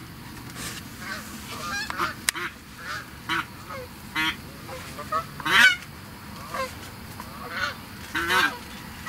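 Geese honking: many short calls at irregular intervals, the loudest about halfway through and again near the end.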